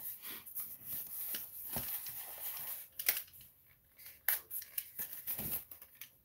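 A styrofoam packaging insert being handled and rubbed: irregular squeaky, scratchy scraping, with a couple of sharp clicks about three and four seconds in.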